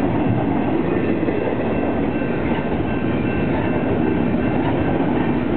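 Double-stack container freight train rolling past at close range: a steady, unbroken rumble of steel wheels on the rails, with faint steady high tones over it.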